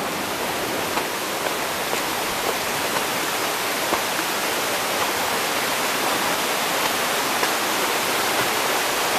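Steady rushing of a fast, muddy stream in flood, a constant hiss of moving water with a few faint ticks over it.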